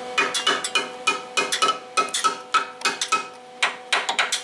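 A freshly flux-core-welded steel floor pan patch being knocked on about four times a second, each knock ringing briefly. The knocks sound solid, the sign of a sturdy weld.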